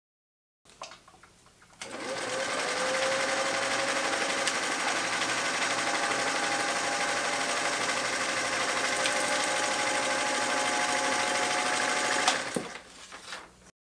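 Singer 201 sewing machine run at full speed through paper for about ten seconds, spinning up quickly to a steady high-speed stitching whir, then stopping abruptly near the end. Light handling sounds come before and after the run.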